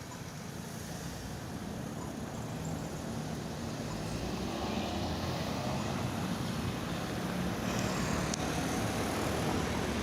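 Road traffic at a city intersection, a steady rumble that grows slowly louder as vehicles approach, with a single short click about eight seconds in.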